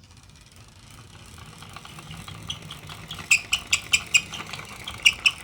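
Toy school bus rolling along a toy car track: a faint rolling rumble that slowly grows, then quick, irregular small clicks and rattles from about halfway on that get louder.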